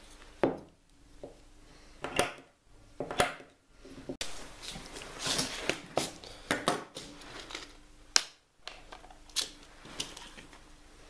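A few sharp knocks of a wooden block and hand tool handled on a wooden workbench, then the clicking and rattling of a clear plastic compartment box full of small metal jewellery findings being handled, with a loud snap about three-quarters of the way through as its latch is opened.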